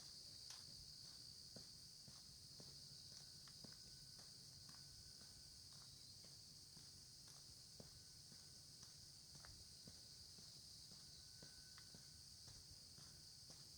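Faint steady insect chorus, a continuous high buzz, with footsteps on the lane clicking about once a second.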